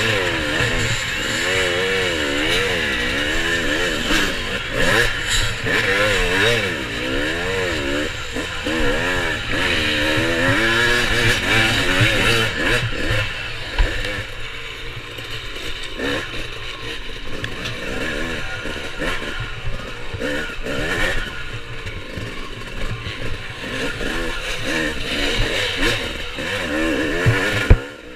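Off-road dirt bike engine heard from the rider's helmet, its pitch swinging up and down again and again as the throttle is worked through a rocky climb, then running lower and steadier. Clattering and scraping of the bike over rocks, with one sharp knock about halfway.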